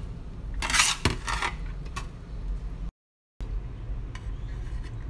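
Metal spatula scraping and clinking against a wok as fried rice is tossed and scooped: a few sharp clicks and one longer scrape about a second in, over a low steady hum. The sound cuts out for about half a second near the middle, then fainter taps follow.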